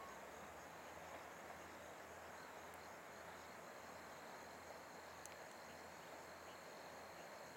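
Near silence: faint outdoor evening ambience with a thin, steady high-pitched tone like an insect's drone, and a single faint tick about five seconds in. No train sound stands out yet.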